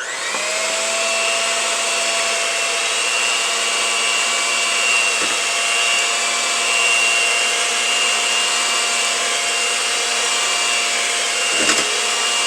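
Electric mixer motor starting up and running steadily at one speed, blending eggs, oil, milk and sour cream into cake batter. A brief knock sounds near the end.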